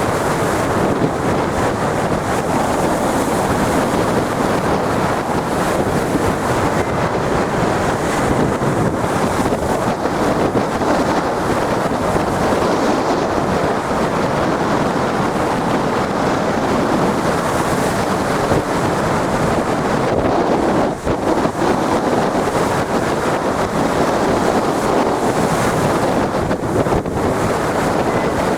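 Loud, steady noise of big sea waves breaking, mixed with strong wind blowing on the microphone.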